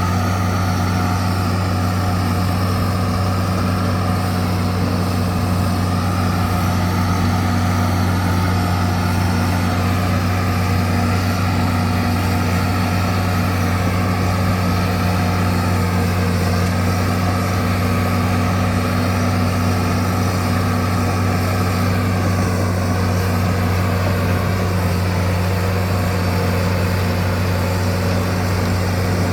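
Bulldozer's diesel engine running steadily, a constant deep hum with no change in speed.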